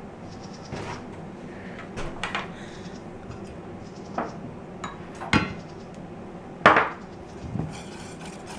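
A mixing utensil clinking and knocking against a bowl as pancake batter is stirred, in irregular strikes about a second apart, the loudest near the end.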